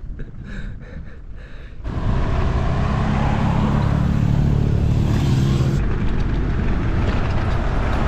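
Loud, steady rush of wind and road noise on an action camera's microphone, as from a bicycle riding fast on a road, starting abruptly about two seconds in after a quieter stretch. A motor vehicle's engine hum runs under it through the middle.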